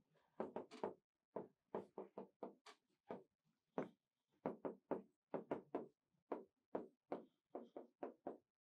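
A quick, uneven series of light taps or knocks, about two to three a second.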